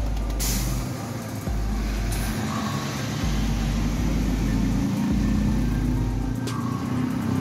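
A motor vehicle engine running close by, getting louder in the second half, over an intermittent low rumble.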